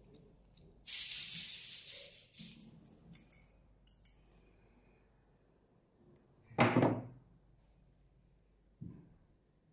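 Handling noises from working on a machine: a hissing scrape about a second in, a loud knock near seven seconds, and a lighter knock near the end.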